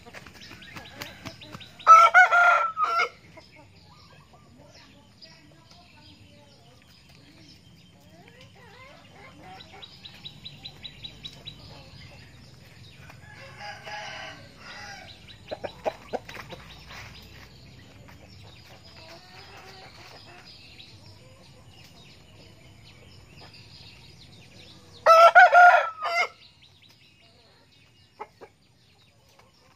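A rooster crows twice, a loud crow of about a second about two seconds in and another near the end, with softer clucking and calls between.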